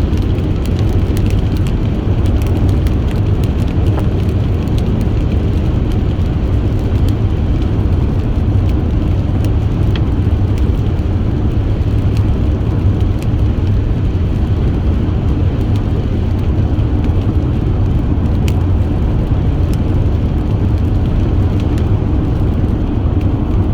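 Steady road and engine noise of a car driving at highway speed, heard from inside the cabin: an even low rumble, with faint ticks now and then.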